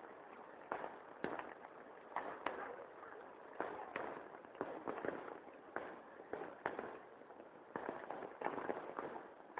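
Floodwater rushing, with irregular sharp knocks and cracks about once or twice a second.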